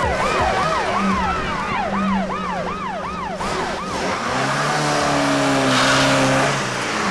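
A yelping siren sound, rising and falling about three times a second over low bass notes, stops about three and a half seconds in; a rising hiss with held tones follows.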